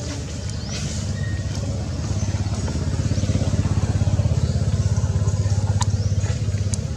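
An engine running nearby with a low, fast, even pulsing, growing louder about two seconds in and then holding steady. Faint short rising chirps sound above it.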